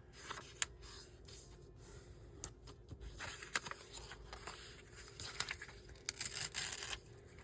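Paper being handled and torn in short rustling bursts, with a few sharp taps.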